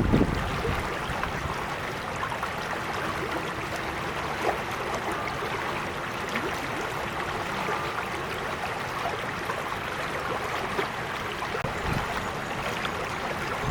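Small creek flowing steadily over stones, a continuous babbling with little plinks of water. There is a brief low rumble right at the start.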